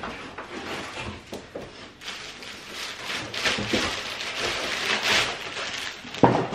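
Plastic packaging crinkling and rustling as a wrapped stroller rain cover is pulled out and handled, with one sharp knock near the end.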